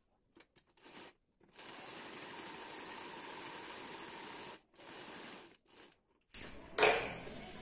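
Sewing machine running as it stitches a seam along a blouse piece and its lining, in short runs: a steady run of about three seconds, then a shorter one. A brief louder sound comes near the end.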